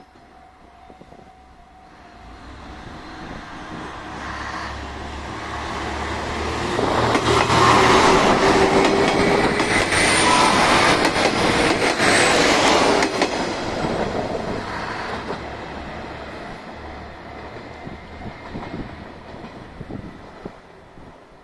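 JR Shikoku 1500 series diesel railcar pulling away under power. Its engines drone, building up as it nears and passes, and the wheels clack over the rail joints. It is loudest about seven to thirteen seconds in, then fades as the train moves off.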